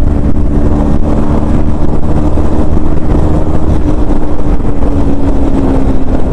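KTM Duke 250's single-cylinder engine running hard at a steady pitch while riding at speed, its note sagging slightly near the end.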